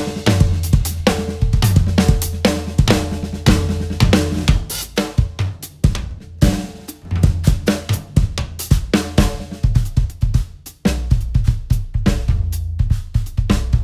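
Acoustic drum kit solo: fast fills around the snare, toms and bass drum mixed with cymbal and hi-hat strikes. The playing thins out briefly about six seconds in and again near eleven seconds before picking back up.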